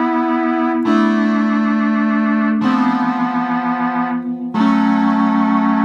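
1975 Baldwin Fun Machine 121 home organ playing held chords with several instrument voices stacked for a full, heavy sound. The chord changes three times.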